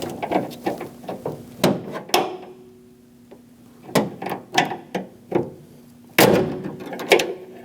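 Metal door lock rods and their plastic retaining clips clicking and knocking inside a van's rear door as the rods are worked loose, with a louder clatter about six seconds in.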